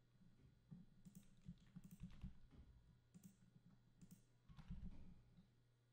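Faint, scattered clicks of a computer keyboard and mouse, over a low steady hum.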